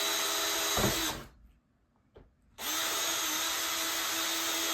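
Electric drill with a 1/8-inch bit boring guide holes, running at a steady whine. It stops about a second in, then starts again, rising to speed, a little past halfway.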